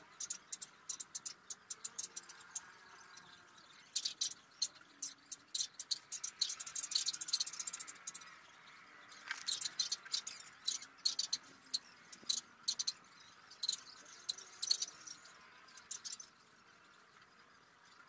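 Prismacolor colored pencil scratching across drawing paper in runs of quick, short strokes while shading, pausing between runs and stopping shortly before the end.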